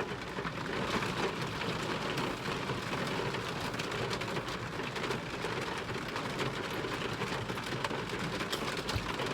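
Pouring rain falling steadily, a dense even hiss of drops with no letup.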